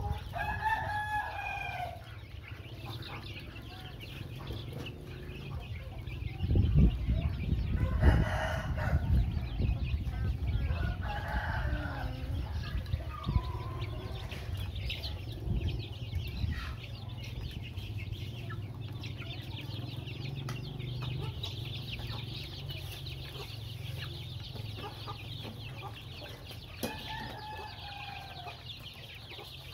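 Young chickens clucking and calling as they peck at feed, with several drawn-out calls of about a second each. A loud low rumble and thumps about seven seconds in are the loudest sound.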